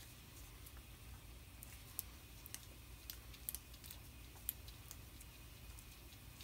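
Small tubing cutter being worked around a brake line, giving a scattering of faint, irregular clicks and ticks with a few sharper ones about halfway through, over a faint low hum.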